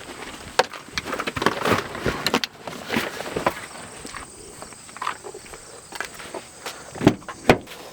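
Footsteps and knocks of gear being carried, irregular, with two sharper knocks near the end.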